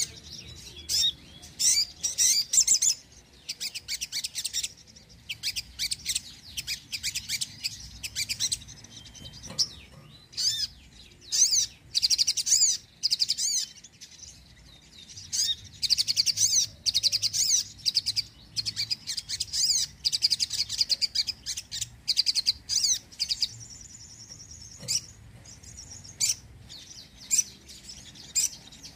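Sogon (crimson sunbird) singing: rapid, high-pitched twittering and trilling phrases in quick bursts with short pauses, going on throughout.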